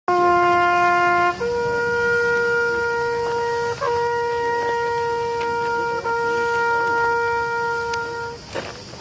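Solo trumpet sounding a slow call: a held note, then a long note about a fourth higher held for some seven seconds with brief breaks, fading near the end.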